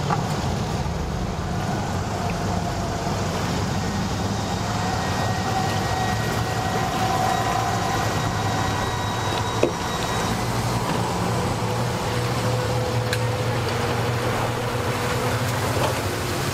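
Yamaha outboard motor idling in reverse, backing the boat off its trailer: a steady low hum whose higher tone drifts in pitch. A single sharp knock about ten seconds in.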